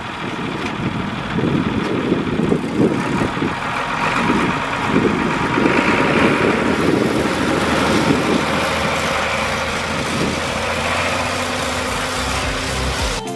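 John Deere tractor engine running as it tows a dry fertilizer spreader across a field, passing close and then drawing away. The sound is steady, swells a second or so in, and eases a little near the end.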